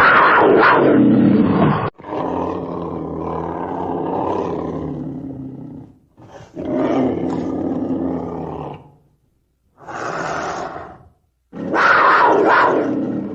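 Black panther, a melanistic leopard, calling: a string of deep big-cat calls in separately spliced clips. The first and last calls are the loudest, and the clips break off abruptly with short silences between them.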